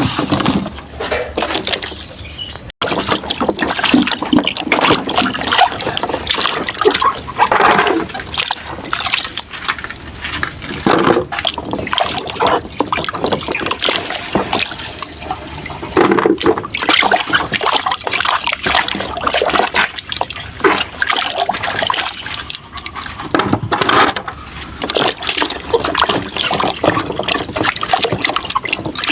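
Water splashing and sloshing as a bunch of plantains is washed by hand, an uneven run of splashes and pours.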